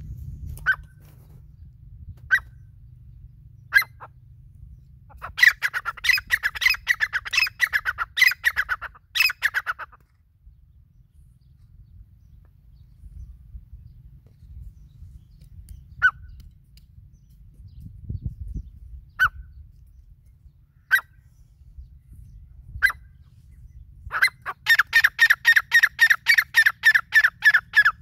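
Grey francolin (teetar) calling: single sharp notes a second or two apart, which build twice into fast, loud runs of repeated notes, about four a second. The first run starts about five seconds in and the second near the end.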